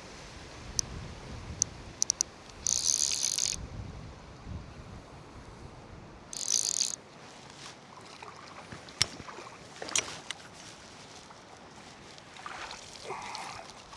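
Click-and-pawl ratchet of a Stillwater PL-C graphite fly reel buzzing in two short runs, with a few single clicks before them, while a hooked wild brown trout is being played.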